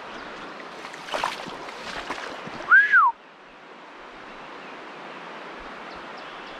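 Steady rush of river water, with a few soft breathy bursts and, about three seconds in, a short clear whistled note that rises and then falls.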